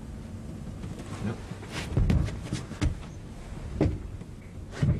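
A few dull knocks and bumps with some rustling over a low steady rumble; the loudest knocks come about two seconds in and again near the end.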